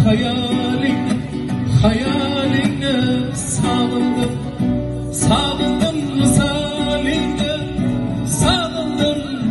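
Live band music played through PA speakers: an acoustic guitar with a Korg keyboard carrying an Uzbek pop song, steady and loud.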